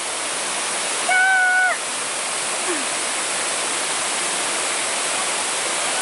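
Small waterfall pouring into a rocky pool, a steady loud rush of falling water. About a second in there is a short, high, held call.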